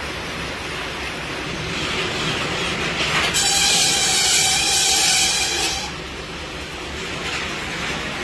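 Satay skewer machine running in production with a steady clattering noise. About three seconds in, a louder high-pitched whine joins it for roughly two and a half seconds, then drops away.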